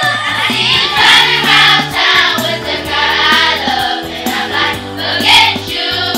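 Music: a song sung by a group of voices over a steady bass line.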